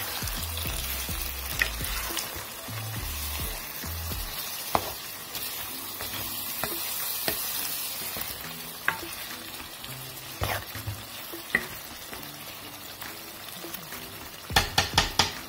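Green beans in oil and tomato sauce sizzling in a pot while a wooden spoon stirs them, with a little water just added. The spoon clicks against the pot now and then, and near the end comes a quick run of five or six sharp knocks.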